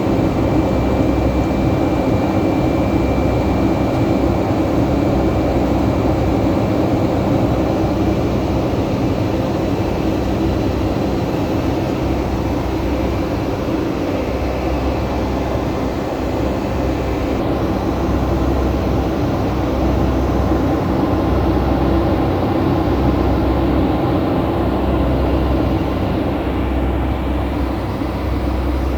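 Steady jet airliner cabin noise inside a Boeing 757-200 climbing after takeoff: engine drone and airflow rumble, with a faint high whine that fades about halfway through.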